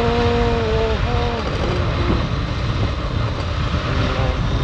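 Wind buffeting the microphone of a moving motorcycle, with the bike running underneath. A held, steady pitched tone sounds over it for the first second and a half and then stops, and fainter pitched tones come back near the end.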